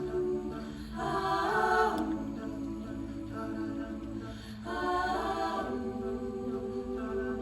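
Music: held, wordless vocal chords in close harmony, shifting to a new chord about a second in and again near the middle.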